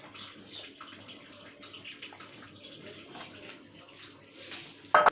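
Water being poured into a tagine of fish and vegetables, a light uneven splashing, with a sharp knock near the end.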